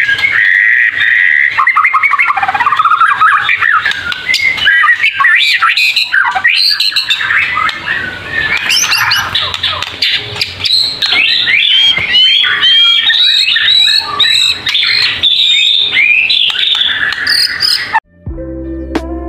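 White-rumped shama singing a fast, unbroken run of varied whistles, trills and chattering notes. About eighteen seconds in, the song cuts off and music starts.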